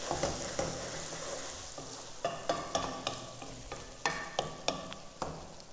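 Wooden spatula stirring okra masala in a metal kadhai, scraping and knocking against the pan in a series of short strokes over a low sizzle of frying oil. The masala is cooked down to the stage where the oil has separated.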